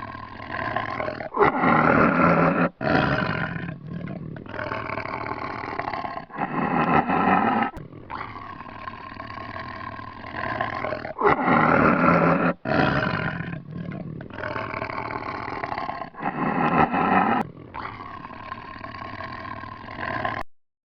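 An animal roaring over and over, a series of loud calls with a clear pitch and short gaps between them, cutting off suddenly near the end.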